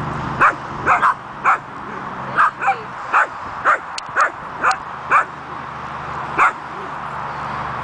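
Small dachshund barking at a feather stuck upright in the grass: about a dozen short barks, roughly two a second, with a pause before the last one about six and a half seconds in.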